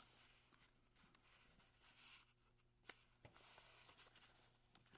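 Faint rustling and creasing of paper as pages of an old hardback book are folded by hand, with a few soft ticks.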